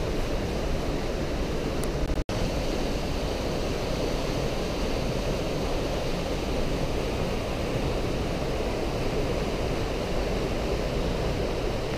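Steady roar of the Breitach river rushing through its gorge, broken by a very short dropout a little over two seconds in.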